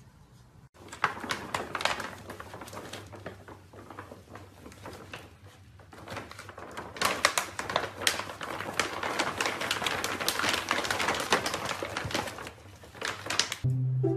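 Crinkling and rustling of a pet-food bag as two kittens scramble on and inside it, starting about a second in and growing louder and busier in the second half.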